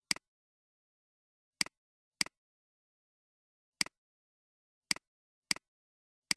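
Computer mouse button clicking about seven times at uneven intervals, each click a quick press-and-release double tick, as the Illustrator pen tool sets anchor points one by one.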